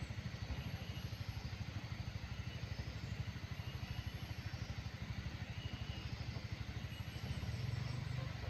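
A small engine idling steadily, with a rapid, even low pulse of about a dozen beats a second that swells slightly near the end.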